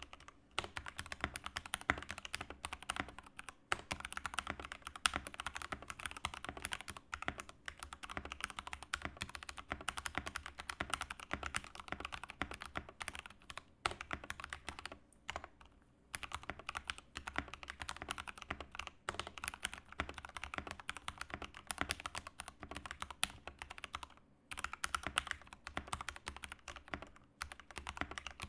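Fast continuous typing on a modded aluminium Keychron K8 mechanical keyboard with lubed Gateron Brown tactile switches, case foam and clipped, band-aid-modded stabilisers, making dense rapid keystroke clicks. The typing breaks off in a few brief pauses.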